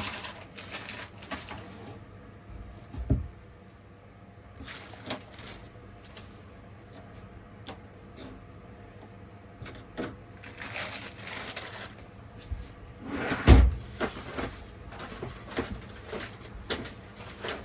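Chainsaw parts being handled during assembly: bursts of rustling, scattered clicks and knocks, a sharp knock about three seconds in and a heavy thump about three-quarters of the way through.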